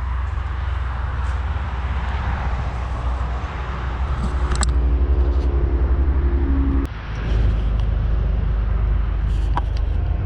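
An engine running with a heavy low rumble, swelling about four seconds in, breaking off suddenly for a moment just before seven seconds, then running on.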